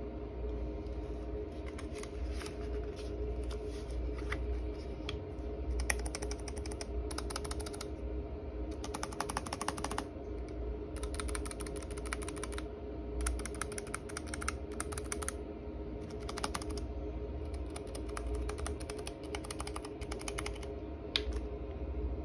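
Typing on a Keychron K3 low-profile mechanical keyboard with brown switches: quick runs of key clacks in bursts of a second or two, with short pauses between them.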